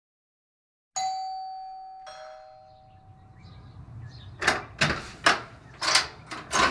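A two-note doorbell chime: a high ding about a second in and a lower dong a second later, both ringing out and fading. From about four and a half seconds, a run of sharp thuds, roughly two a second, louder than the chime.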